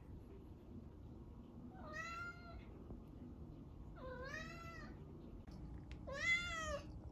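Kitten meowing three times, about two seconds apart, each meow a short call that rises and then falls slightly in pitch; the last meow is the loudest.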